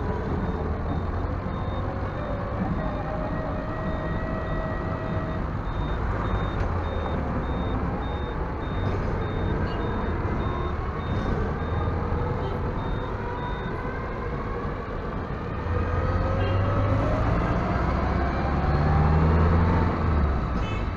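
Motor vehicle engine running under way, its pitch rising and falling as it speeds up and changes gear, and louder in the last few seconds. Over it a high electronic beep repeats steadily and stops about two-thirds of the way through.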